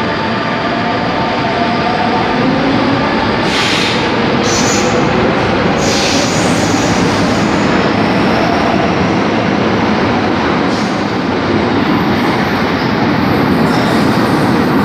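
Metro train running on its rails: a loud, steady rumble of wheels and track, with faint whining tones that shift in pitch in the first few seconds and a few brief high-pitched bursts about four and six seconds in.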